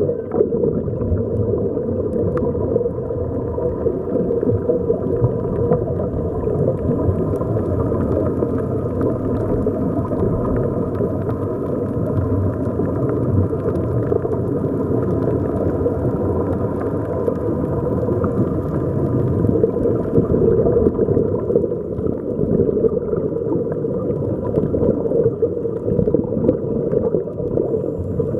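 Muffled underwater noise picked up by a camera below the surface: a steady, dense rumble of water with a faint steady hum.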